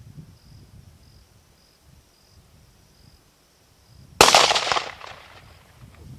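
A single hunting rifle shot about four seconds in, a sharp loud crack with an echo that dies away over about a second. Faint insect chirping pulses steadily underneath.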